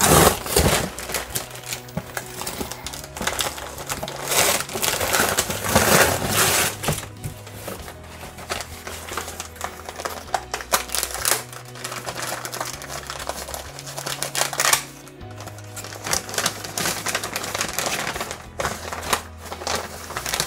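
Newspaper packing crinkling and rustling in irregular bursts as it is pulled out of a cardboard box and unwrapped, over background music with a slow bass line.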